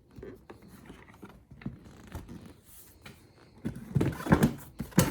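Can-Am Spyder seat being handled and fitted back on: scraping and clicking, then a cluster of loud knocks in the last second or so.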